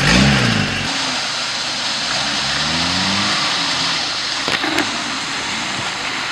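Off-road 4x4 vehicle engine revving up and down in repeated surges, loud at first and dropping away about a second in, with a quieter second surge of revs around the middle. Two short knocks come a little later.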